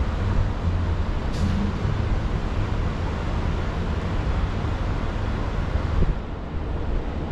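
Steady low outdoor rumble with no clear single source, a brief hiss about a second in and a sharp thump about six seconds in.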